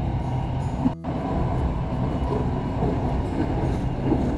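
SRT Red Line electric commuter train running, heard from inside the car as a steady low rumble, with a brief break in the sound about a second in.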